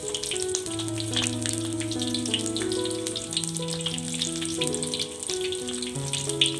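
Oil sizzling in a wok with frequent crackling pops as lemongrass and chillies fry, with soft piano music underneath.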